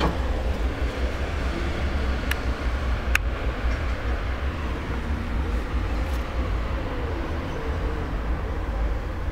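Wind buffeting the microphone at an open roof hatch: a constant, fluctuating low rumble, with two sharp clicks about a second apart, two to three seconds in.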